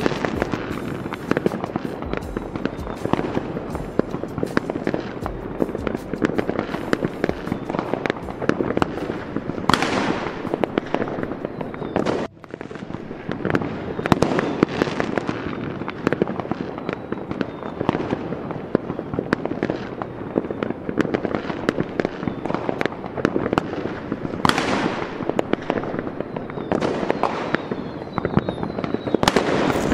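Fireworks display: aerial shells bursting in a rapid, continuous barrage of bangs and crackles, with a sudden brief drop about twelve seconds in.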